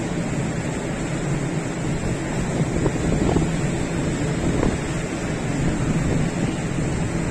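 Wind buffeting the phone's microphone on the open deck of a ship under way, with the wash of water and a steady low hum underneath.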